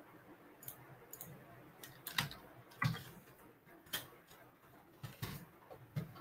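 Faint computer keyboard typing: a handful of separate keystrokes, about seven, spaced unevenly.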